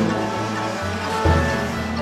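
Upbeat cartoon background music with a bass line moving in steps.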